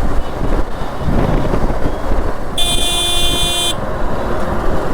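A vehicle horn sounds once, a steady blast lasting about a second, starting a little past halfway, over the constant wind and road noise of a moving motorcycle.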